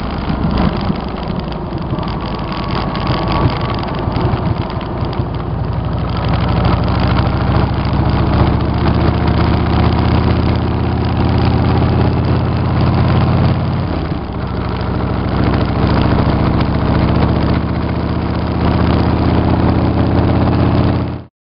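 V-twin cruiser motorcycle engine running steadily under way. It eases off briefly about two-thirds of the way through, then picks back up, and cuts off suddenly near the end.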